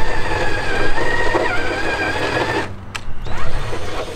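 A small handheld high-speed power tool whining as it cuts into the underside of a car hood to open up a hood-pin hole. Its pitch drops a little under load about one and a half seconds in, and it stops shortly before three seconds in, followed by a few short knocks.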